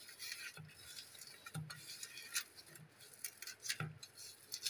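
Bare fingers squeezing and rubbing chopped green chillies and onion with salt in a stainless steel bowl. Faint, irregular taps and clinks come from fingers and nails knocking the metal.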